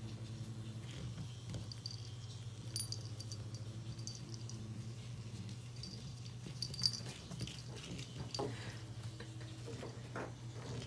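Light clicks and scrapes of a Persian kitten batting, pouncing on and biting a grasshopper on a hard floor, with sharp clicks about three seconds in and again around seven seconds. A steady low hum runs underneath.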